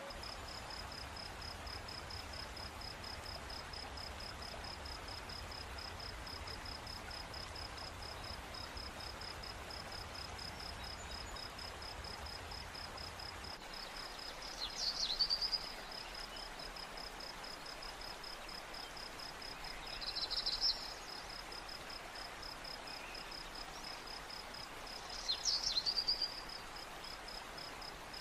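An insect, cricket-like, chirping in a steady, fast, even pulse on one high note. Three short, louder bursts of chirping break in near the middle and toward the end.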